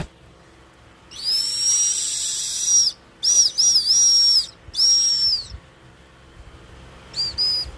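Turbo whistle sounding in a series of high-pitched whistles: a first note of nearly two seconds, then shorter notes whose pitch wavers, and two short toots near the end.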